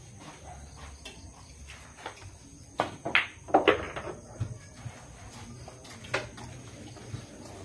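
Pool shot: the cue tip strikes the cue ball about three seconds in, followed by a quick run of sharp ball-on-ball clicks and knocks as an object ball is driven into a pocket, then a single click a few seconds later.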